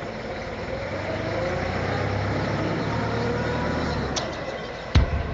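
A low motor-vehicle engine rumble that swells and then drops away, with a sharp thump near the end.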